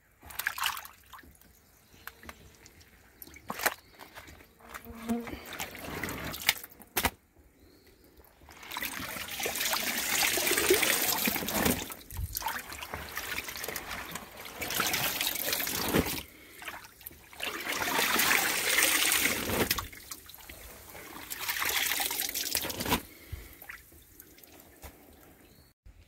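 Soaked cardboard being pulled out of a tote of brown mulch water, with the water trickling and pouring off it back into the tub. There are a few small splashes at first, then four long runs of trickling water.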